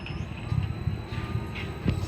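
Panrui 10 HP rotary screw air compressor starting on its variable-frequency drive: a low hum builds while a faint whine rises in pitch as the motor ramps up. A sharp click comes near the end.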